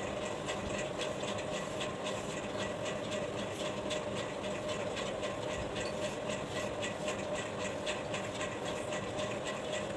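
A steady mechanical hum with an even pitch running through it, unchanging throughout.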